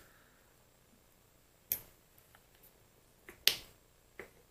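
Four short, sharp metal clicks and taps, the loudest about three and a half seconds in, from the small steel parts of a mini lathe's apron being moved and fitted by hand.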